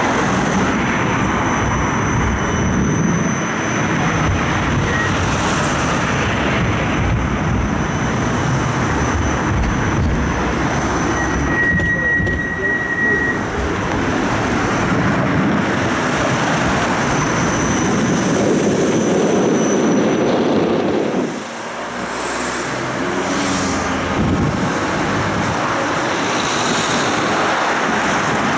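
Siemens Combino low-floor tram running on its rails, heard from inside the car: a steady rumble of wheels and running gear, with a faint high steady whine on and off. The low rumble drops away briefly about two-thirds of the way through, then returns.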